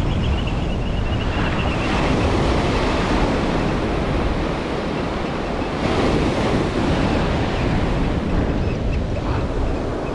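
Surf breaking and washing on the shore, with wind buffeting the microphone; the wash swells about two seconds in and again about six seconds in.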